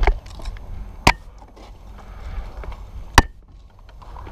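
Two sharp cracks of airsoft fire about two seconds apart, the second much louder and each with a brief ring, after a last footstep at the start.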